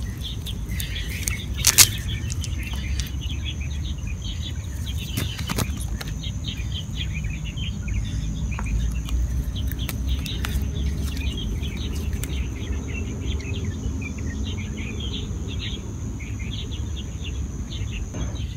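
Riverside ambience: many small birds chirping, a steady high insect drone and a low background rumble, with a few sharp clicks and rustles from the cast net being handled, the loudest click about two seconds in.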